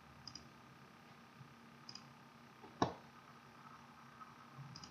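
A few faint computer mouse clicks over quiet room tone, with one sharper, louder click a little before the middle.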